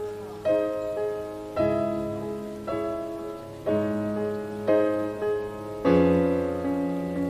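Piano music: chords struck about once a second, each ringing and fading, with a fuller, louder chord near the end.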